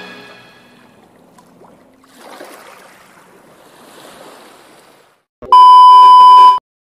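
The tail of electronic intro music dies away, then a faint surf-like wash of noise, then a loud, steady test-tone beep of the kind played with TV colour bars, lasting about a second and cutting off suddenly.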